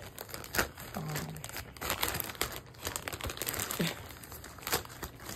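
A bag crinkling and rustling in irregular crackles as it is worked open by hand.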